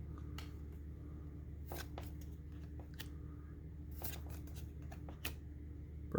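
Yu-Gi-Oh! trading cards being handled and slid past one another: a scatter of short clicks and rustles over a steady low hum.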